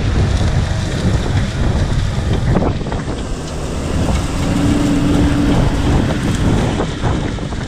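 A Case Maxxum tractor pulls a Super Tatú disc harrow through the soil, making a steady heavy rumble of engine and discs churning earth. Wind buffets the microphone, and there is a short steady hum a little after the middle.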